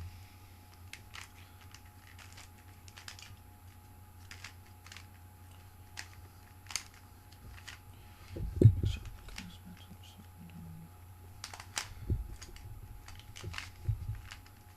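Rubik's Cube being turned by hand: irregular small plastic clicks as its layers snap round, with a few dull low thumps, the loudest about nine seconds in, over a steady low hum.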